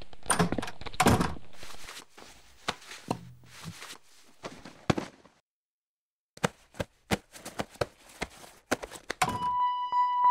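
Irregular clicks and knocks, dense and loud at first, then a silence of about a second, then a quick run of sharp clicks. Near the end a steady ringing tone with overtones sets in as music starts.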